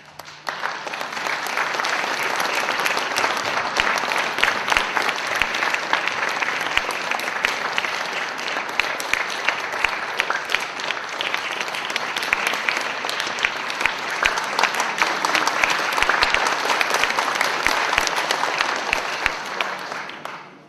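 A concert hall audience applauding, a dense, steady clapping that welcomes the announced soloist, dying away quickly near the end.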